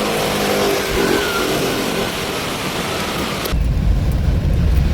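A car's engine running under a loud, steady hiss of heavy rain and water. About three and a half seconds in, the sound cuts abruptly to a low, rumbling noise with the hiss gone.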